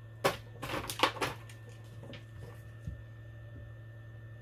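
Handling noise: a gloved hand grabbing and shifting a plastic ECU housing on the bench, a quick cluster of rustles and knocks in the first second and a half and a small tick near three seconds. A steady low hum runs underneath.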